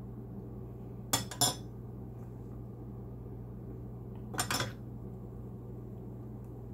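A ladle clinking against a metal cooking pan, in two short clusters about a second in and again after four seconds, over a steady low hum.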